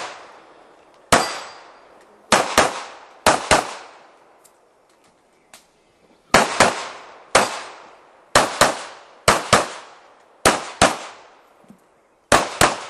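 Gunshots from a practical-shooting stage, fired mostly in quick pairs (double taps) with short pauses between the pairs as the shooter moves from target to target. Each shot has a short echoing tail, and there is a pause of about two seconds near the middle.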